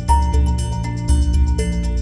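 Background music with a steady pulse of plucked or mallet notes over a deep bass.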